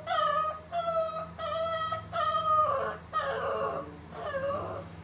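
Shih Tzu puppy crying in a string of about seven high whines, the last few falling in pitch. A steady low electric hum from the dog clipper runs underneath. The groomer supposes the puppy is afraid of the clipper.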